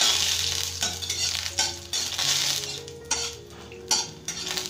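Black mustard seeds and a dried red chilli sizzling in a little hot mustard oil in an aluminium kadai. A metal spatula stirs them, scraping the pan in repeated strokes.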